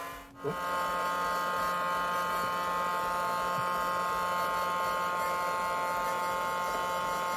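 Handheld hot-air blower (heat gun) switched on about half a second in and running steadily, a constant whine over a rush of air. It is heating a phone's plastic back cover to soften the adhesive so the cover can be lifted off.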